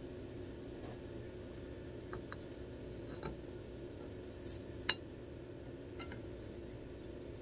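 Steel Remington 700 bolt nose being test-fitted into the freshly cut recess in the barrel tenon. It gives a few faint metal clicks, then one sharper clink about five seconds in and a lighter one a second later, over a steady low hum.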